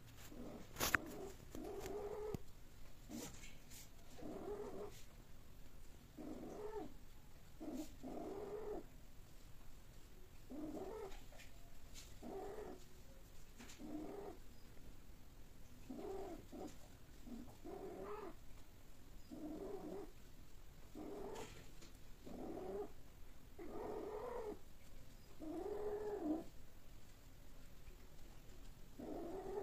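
Long-haired cats mating: a repeated series of drawn-out yowls, one every second or two, the calls growing longer and louder near the end. A few sharp clicks about a second in.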